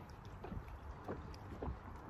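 Lake water lapping against a boat hull in soft slaps about every half second, over a low wind rumble on the microphone.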